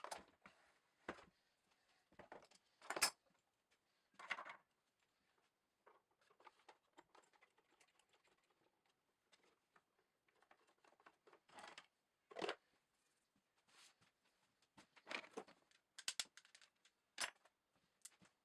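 Scattered light knocks and clicks of small parts and tools being handled, irregular and a few seconds apart, the loudest about three seconds in, with near silence between.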